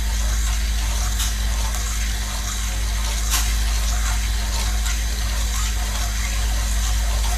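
Spoon stirring jelly powder into hot water in a steel pot: liquid swishing, with a couple of faint light clinks, over a steady low hum.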